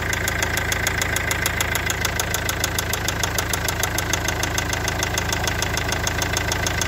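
Mazda 6 GG's 2.0-litre MZR-CD (RF-Turbo) four-cylinder common-rail turbodiesel idling steadily, a diesel clatter with a regular ticking about six or seven times a second.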